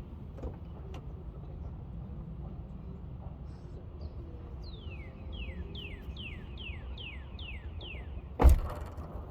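A bird sings a run of about eight quick whistled notes, each sliding down in pitch. About a second later comes a single loud knock or clang, the loudest sound, over a steady low rumble.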